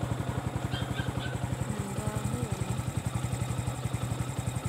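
Motorcycle engine idling: a steady, rapid low putter.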